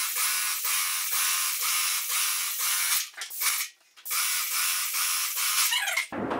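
Wagner Control Pro 250M airless paint sprayer spraying through its extension wand: a loud hiss of atomised paint pulsing about three times a second. The spray cuts out briefly a little after halfway, then resumes.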